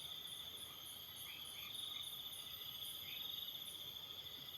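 Crickets and other insects calling: a steady high trill, with a thinner, higher chirp repeating two or three times a second that pauses near the end.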